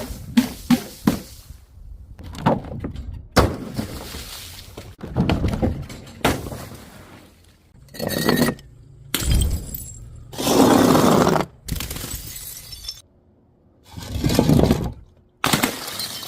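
Glass bottles and jars shattering and being crushed, one after another: a quick run of sharp cracks at the start, then several longer crunching, breaking stretches of about a second each that start and stop abruptly.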